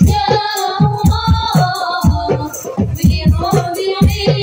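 Women's voices singing a sholawat melody, a lead voice with others joining, over hadroh frame drums beating a quick, steady rhythm with bright jingles on top.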